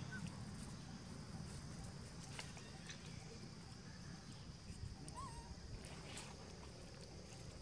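Faint outdoor ambience: a steady low rumble with scattered soft clicks and rustles, and two brief high chirps, one at the start and one about five seconds in.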